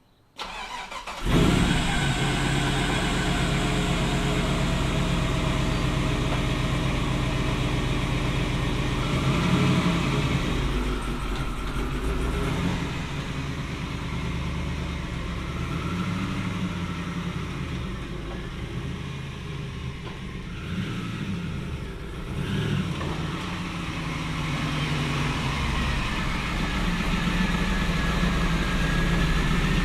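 A square-body crew cab pickup's engine starting up, then running steadily with a couple of brief rises in revs.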